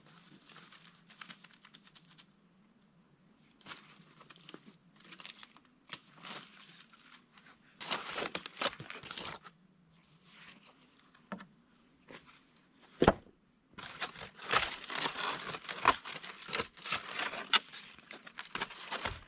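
Aluminium foil crinkling and rustling as a foil packet of corn on the cob is handled and opened, turning into near-continuous crinkling and husk tearing in the last few seconds. A single sharp knock comes about two-thirds of the way in.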